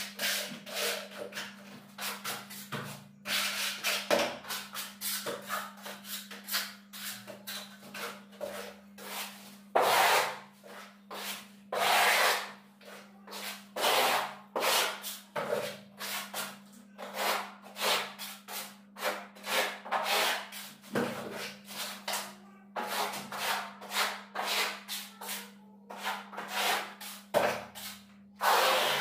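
A plastering trowel scraping bark-beetle (koroed) decorative plaster across a wall in quick, irregular strokes, a few a second, the grit in the plaster rasping against the surface.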